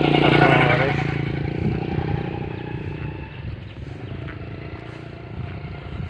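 A motor vehicle's engine passing close by, loudest about half a second in, then fading away over the next three seconds.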